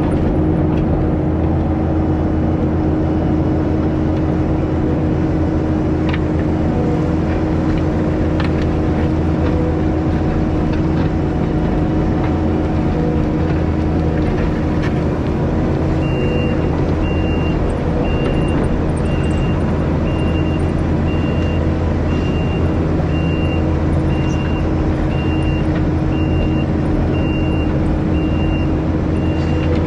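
Small diesel earthmoving machine running steadily under work. From about halfway in, a reversing alarm beeps about once a second.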